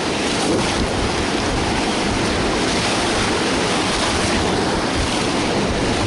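Whitewater rapid rushing and churning around an inflatable raft as it runs through, heard up close from the raft, with wind on the microphone. The rush grows loud right at the start and then holds steady.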